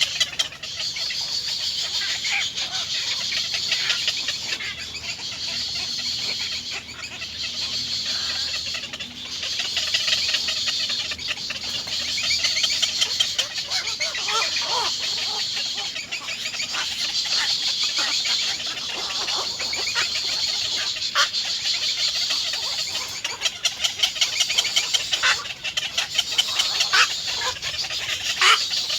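Nestling birds begging with a dense, continuous run of rapid high-pitched chirps that swell and fade in waves.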